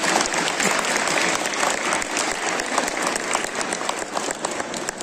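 An audience applauding, many hands clapping at once.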